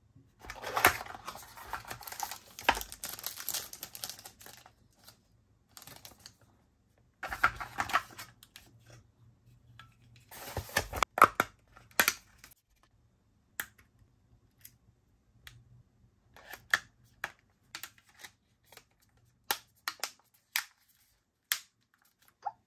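Hands handling a Nokia 225 4G feature phone: bouts of rustling and scraping as its plastic back cover is worked off and handled, then a run of separate sharp clicks as the cover is pressed back on and its clips snap into place.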